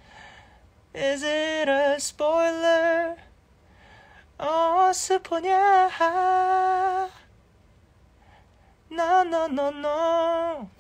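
A man singing unaccompanied in a high voice: three held, drawn-out phrases with short pauses between them.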